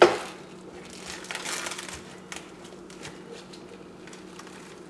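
Plastic wrap on a foam tray of ground beef crinkling as it is pulled open, with a sharp knock at the very start and a short crinkle about a second in, then a few small ticks.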